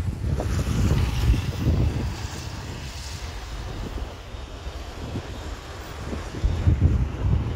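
Wind buffeting the microphone in uneven gusts, with a faint rushing hiss in the background that fades out about three and a half seconds in.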